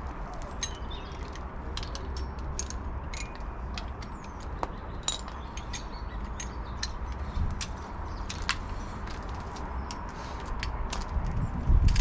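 Hand tools clicking and clinking on metal while working the car's front suspension bolts: irregular sharp clicks, a few a second, over a low background rumble.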